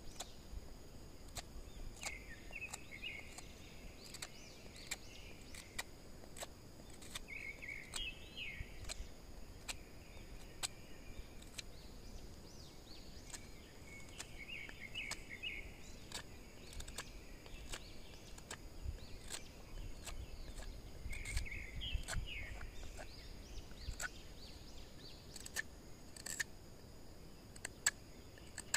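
Outdoor countryside ambience: insects keep up a steady high-pitched drone while a bird calls in short chirpy phrases about every six seconds. Frequent sharp clicks run through it.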